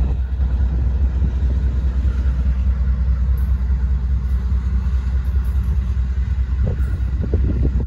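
Engine idling, a steady low rumble.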